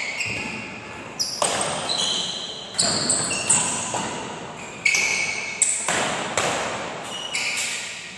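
Badminton rackets smacking a shuttlecock back and forth in a doubles rally, a sharp echoing hit every second or so, with the hall's reverberation trailing each stroke. Short high squeaks from players' shoes on the court floor come between the hits.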